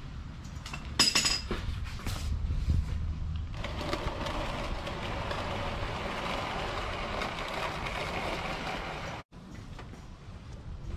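A sharp metallic clink about a second in, then about five seconds of steady scraping as a plastic oil drain pan is slid across the concrete garage floor.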